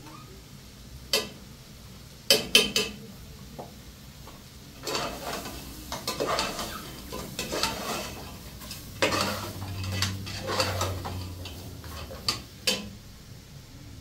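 A metal spoon clinking against a steel cooking pot, then several seconds of stirring and scraping inside the pot, with two more clinks near the end.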